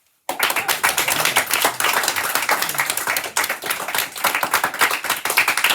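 A small group of people clapping, starting suddenly about a third of a second in and keeping up a dense, uneven patter.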